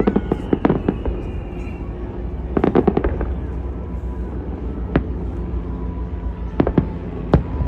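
Aerial fireworks shells bursting: a run of sharp bangs, with a quick cluster of cracks about three seconds in and single reports spaced through the rest, over a steady low rumble.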